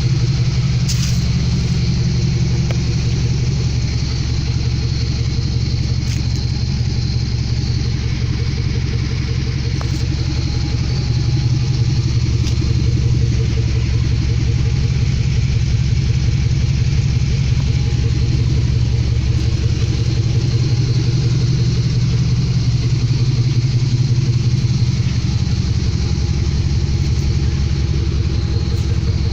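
1998 Dodge Ram 1500 pickup's engine idling steadily.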